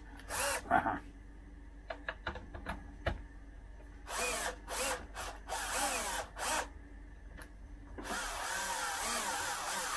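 Cordless drill-driver driving screws into a chainsaw's plastic housing: the motor runs in short bursts, its pitch rising and wavering as each screw bites, with a longer run near the end.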